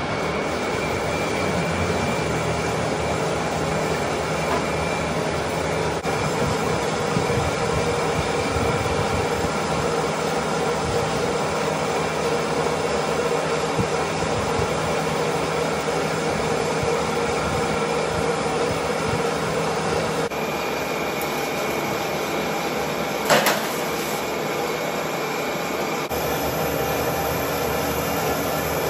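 Large manual metal lathe running under power, facing a big metal tube held in a four-jaw chuck: a steady mechanical drone with a faint high whine. A short, sharp noise stands out near the end.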